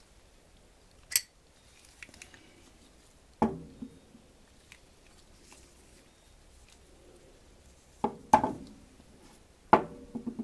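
Metal tools and brass airgun valve parts knocking and clinking on a tabletop as they are handled and set down: about five sharp separate knocks, then a short rattle near the end.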